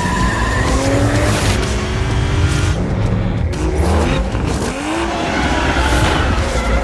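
Car engine revving up and down with tyres squealing and skidding through corners.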